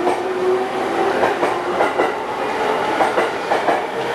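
Electric train pulling out of the station, its wheels clicking irregularly over the rail joints as it picks up speed, with a faint motor whine rising in pitch.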